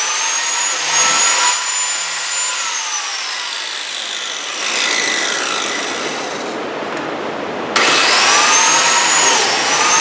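Biscuit joiner working oak boards: its motor runs with a steady high whine, is switched off and winds down over a couple of seconds, then starts up again nearly eight seconds in, its pitch dipping briefly as it meets the wood.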